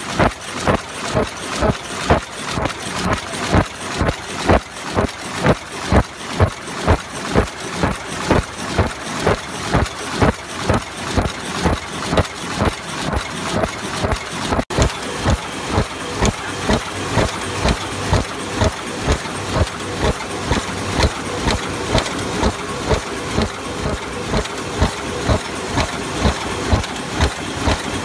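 High-speed paper cup making machine running, clattering rhythmically at about two strokes a second as it forms cups, over a steady hiss. About halfway in, the strokes become less pronounced.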